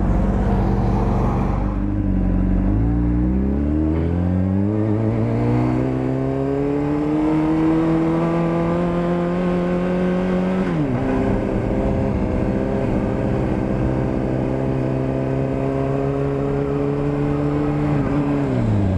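Honda CBR600RR's inline-four engine pulling away, its note rising for several seconds. About eleven seconds in the pitch drops sharply, like an upshift, and the engine holds a steady note. Near the end the note falls away as the engine slows.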